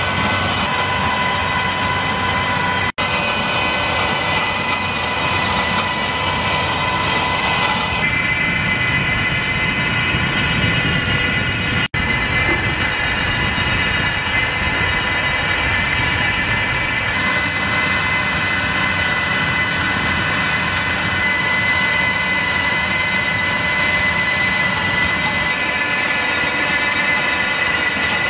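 Tractor and Grimme potato planter running in the field: a loud, steady mechanical drone with rattling and a high whine. The sound changes abruptly a few times, with two brief dropouts, where the footage is cut.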